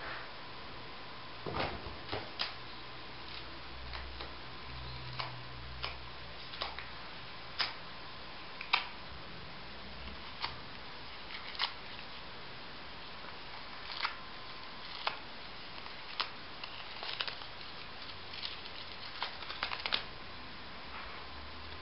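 Scattered light clicks and rustles from a cat playing on carpet with a crumpled paper ball, a tick every second or two and a quick cluster near the end, over a steady camcorder hiss.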